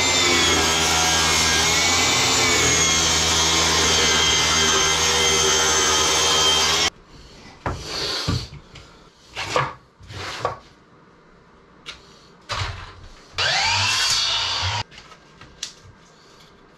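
A power tool running steadily on pallet wood, which stops abruptly about seven seconds in. After it come scattered short scrapes and knocks of wood being worked, with one longer burst a little past two-thirds of the way through.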